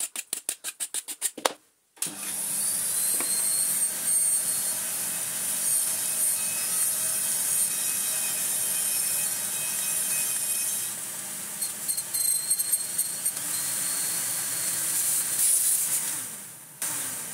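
A metal file rasps on the cut end of a metal vacuum tube, about five quick strokes a second. About two seconds in, an Electrolux Turbomatic Z380 vacuum cleaner starts and runs steadily with a high hiss of air through the tube, sucking up the filings, while a few more file strokes scrape over it past the middle. It is switched off near the end and winds down.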